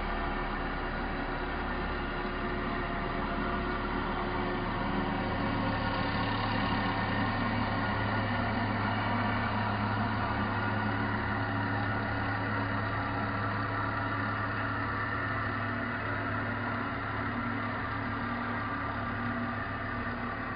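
CNC machine running while it cuts a foam block: a steady machine hum with several constant tones. A low hum grows stronger about four seconds in.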